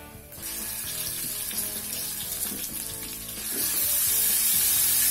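Ground spice paste and spring onions sizzling as they are stir-fried in hot oil. The sizzle starts about half a second in and grows louder about three and a half seconds in.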